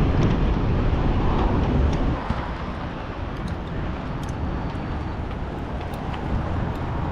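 Outdoor traffic noise with wind rumbling on the microphone, louder for the first two seconds and then easing to a steady lower rumble.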